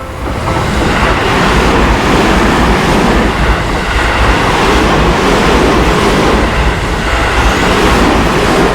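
A train passing a railway level crossing at close range: loud, steady wheel-and-rail noise that builds within the first second, holds for about eight seconds and eases off near the end. The crossing's warning bell is ringing at the start before the train drowns it out.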